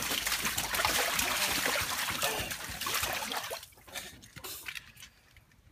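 Water splashing in a small inflatable paddling pool as a toddler slaps the surface with his hands, a dense patter of splashes that dies away after about three and a half seconds, leaving only a few faint drips and sloshes.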